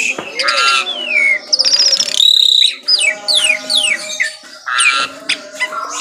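White-rumped shama singing a fast, varied song of rapid downward-sliding whistles, trills and buzzy notes, with hardly a pause.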